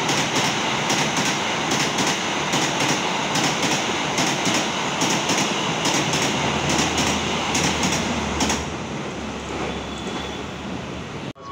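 Passenger train coaches passing close by: a steady rush of wheels on rails with regular clicking as the wheels cross rail joints. The sound drops away after about eight seconds as the last coach goes by.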